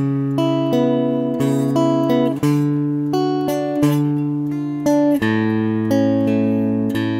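Electric guitar playing a song's intro: picked notes ringing together over a held low bass note, the chord changing every second or two.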